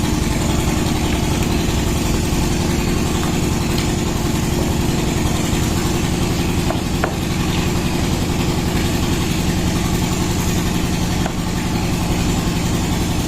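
A steady engine-like machine running nonstop, a constant low hum, with a few faint clicks about halfway through.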